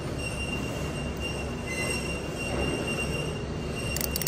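A steady high-pitched whine over a low hum, and near the end rapid clicking as a 72-tooth Quinn ratchet is spun.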